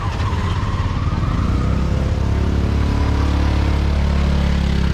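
A motor vehicle engine running close by with a steady low hum that grows stronger about two seconds in and holds.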